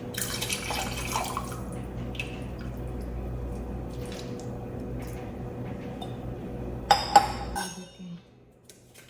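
Liquid poured into a cooking pot, with a hissing splash in the first second or so, over a steady low hum that cuts off about seven and a half seconds in. Two sharp clinks of cookware come just before the hum stops.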